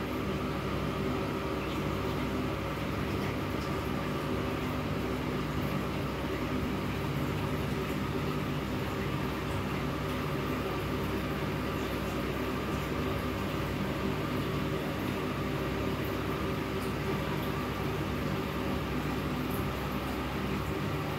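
Steady mechanical hum of a small motor or fan running, several steady tones over a hiss, at an even level with no breaks.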